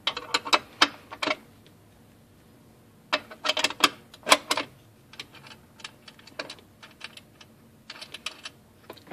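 Rapid metallic clicking and clinking of a small wrench turning the knee-lift adjusting nuts under an industrial sewing machine's oil pan, setting the amount of play in the knee lift. The clicks come in bursts: one at the start, a louder run around three to four and a half seconds in, then fainter scattered clicks.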